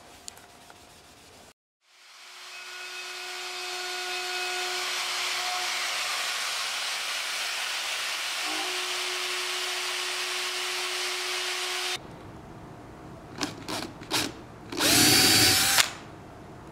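A plunge router runs steadily for about ten seconds, cutting the edge of an oak board, then stops abruptly. After that a cordless drill-driver gives three short trigger bursts and then one longer, louder burst whose pitch rises, driving a screw into oak.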